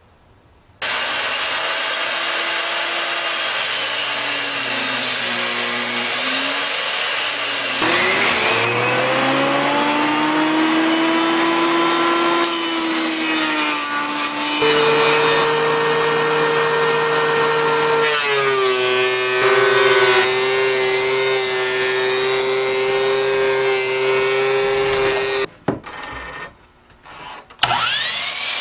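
Power tools cutting aromatic red cedar boards in several edited-together runs: a benchtop table saw, a benchtop jointer and a sliding miter saw. Their motors give a steady loud whine that changes pitch at each cut between shots, and a motor winds up again just before the end.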